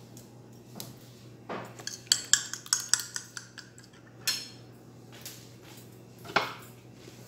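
Metal utensil clinking against a bowl in a quick, irregular run of strikes lasting about two seconds, then two single clinks: eggs being mixed with black pepper and salt.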